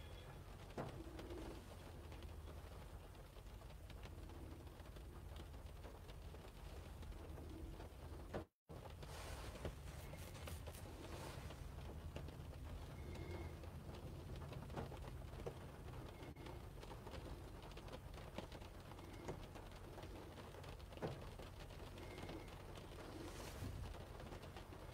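Quiet background inside a car: a steady low rumble with faint clicks and a few short, faint high chirps. The sound cuts out completely for a moment about eight seconds in.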